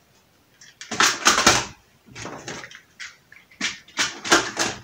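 Handling noises at a workbench: several short rustling, clattering bursts of hands rummaging among hardware and tools.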